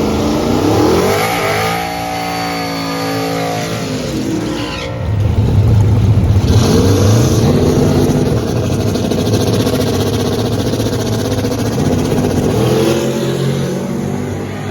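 A drag car's engine revving: the pitch climbs and holds high for a couple of seconds, then drops to a loud low rumble, and revs up again near the end.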